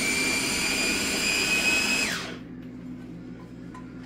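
Electric food chopper's motor running with a high whine as its blades chop fruit into salsa, the pitch creeping up slightly. It is released about two seconds in and winds down to a stop.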